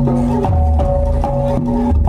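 Live gamelan music for a jaranan dance: struck pitched percussion playing a repeating pattern of notes over a steady low drum beat.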